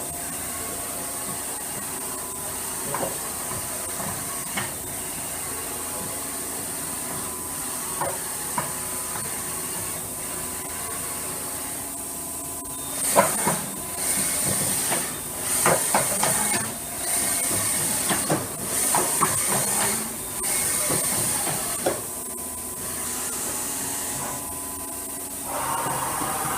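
1998 Okuma Cadet Mate vertical machining center jogging its Y axis at 50% feed: a steady hum of the machine's drives with occasional knocks. From about halfway a high hiss switches on and off about once a second, with clatter.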